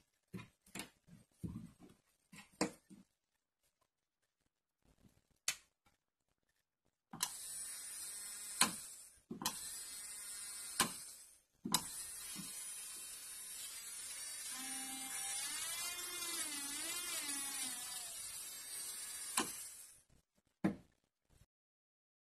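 A 35,000 rpm electric nail drill's handpiece motor running with a high whine, stopping and starting twice. Midway its pitch wavers up and down, then it stops. A few handling clicks and knocks at the start.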